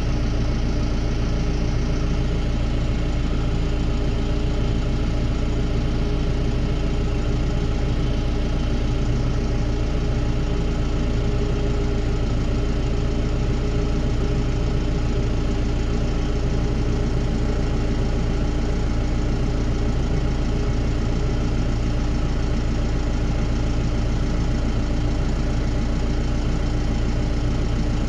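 Diesel engine of farm harvest machinery running steadily: an even, unbroken drone with a constant hum.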